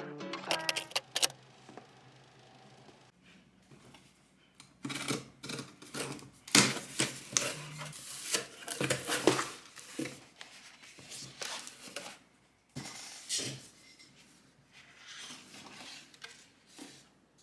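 Cardboard boxes and packaging being handled and opened by hand: irregular scrapes, rustles and taps, busiest in the middle.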